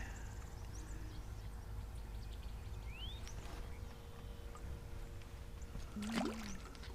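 Steady low rumble with a faint steady hum and light pouring water, broken by a short knock about six seconds in.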